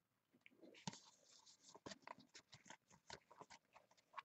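Faint, irregular clicks and scrapes of cardboard trading cards being flipped through and slid off a stack by hand.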